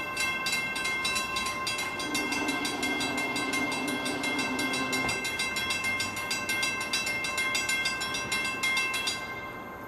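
Railroad grade-crossing warning bell ringing fast and evenly, about five strikes a second, while the gates come down. It stops about nine seconds in. A distant train horn sounds one low, steady blast from about two to five seconds in.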